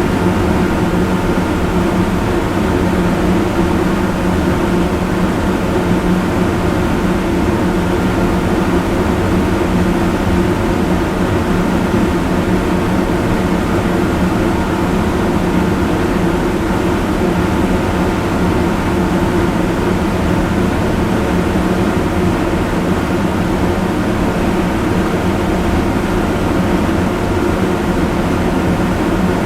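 Loud electric fan running steadily: a constant rush of air with a low hum and several steady tones underneath, unchanging throughout.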